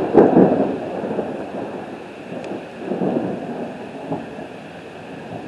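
Thunder from an overhead thunderstorm: a loud peal just after the start that rumbles away over a second or so, and a second rumble about three seconds in, over steady rain and wind noise.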